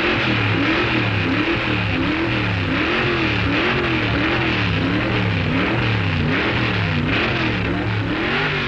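Drag racing car engine revving up and down in a regular rhythm, about three swings in pitch every two seconds, over a steady hiss.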